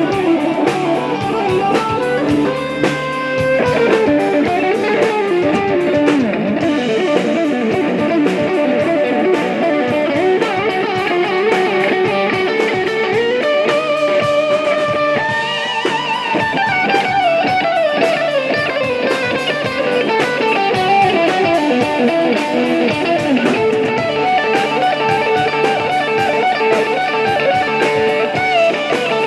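Rock music led by electric guitar, with a melodic line sliding up and down in pitch over steady strummed accompaniment.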